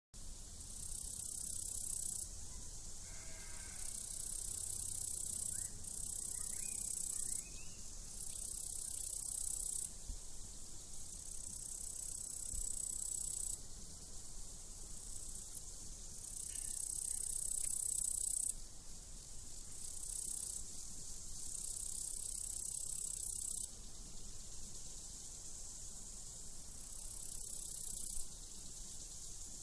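Crickets trilling in high-pitched bursts of one to two seconds that start and stop over and over, over a steady hiss.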